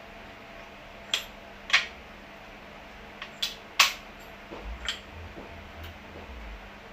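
Sharp clicks and taps of small hardware and parts being handled while a kit is put together, about six in all, the loudest just before the middle, followed by some low handling rumble.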